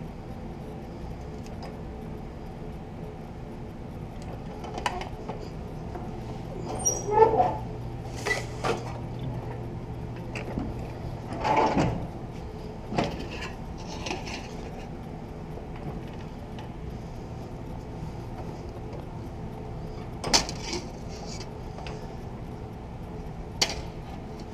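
Sheet metal being bent and its fold flattened: scattered sharp metallic clanks and knocks at uneven intervals over a steady background hum.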